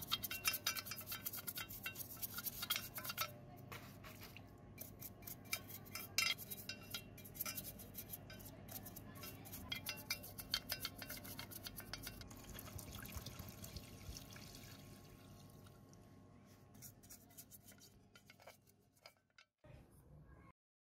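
Scrubbing the inside of a metal fan motor housing by hand in soapy water: quick scratchy strokes against the metal with water splashing and dripping, thinning out near the end.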